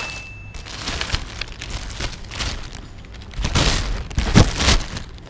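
Thin plastic bag crinkling and rustling as boneless milkfish are handled inside it, strongest in a flurry of crackles past the middle. A short steady high tone stops less than a second in.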